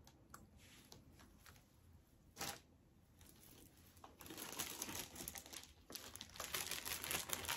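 Plastic bag and item packaging crinkling as items are handled and pulled out. It starts with a few faint clicks and one short rustle, and becomes a steady crinkling from about halfway through.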